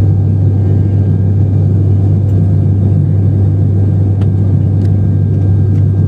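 Steady, loud low drone of an ATR 72-600 turboprop's engine and propeller in cruise, heard inside the cabin beside the propeller, with a constant deep hum from the blades.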